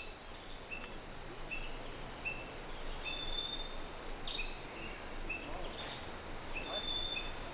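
Forest ambience: a steady high insect drone, a short chirp repeating about every three-quarters of a second, and a few louder bird calls that sweep downward.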